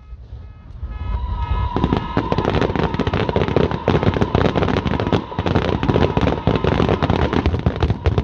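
Fireworks finale: after a brief lull, a dense, rapid crackling of many small bursts builds up about two seconds in and keeps going, with a steady high tone running underneath.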